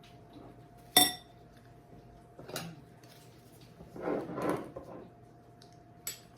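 Kitchen dishes and utensils handled: one sharp, briefly ringing clink about a second in, then softer knocks and a scraping rustle around four seconds, over a faint steady hum.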